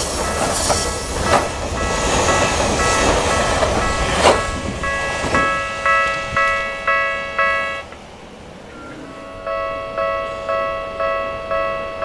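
Tokyu Toyoko Line electric train passing over a level crossing, with wheels clacking over rail joints. As it clears, about five seconds in, the Japanese level-crossing electronic warning bell rings about twice a second. It stops briefly near eight seconds, then starts again as a second train approaches.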